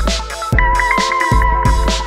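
Background electronic music with a steady beat, deep bass thumps and a held synth melody.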